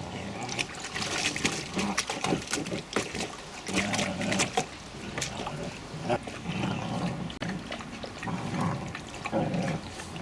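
Irish Wolfhound puppies wading and pawing in a shallow plastic paddling pool, water splashing and sloshing. Low grunting play noises from the pups are mixed in through the second half.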